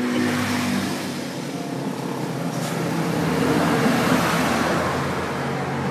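Road traffic: a motor vehicle passes, its noise swelling to its loudest about four seconds in, over a steady engine hum.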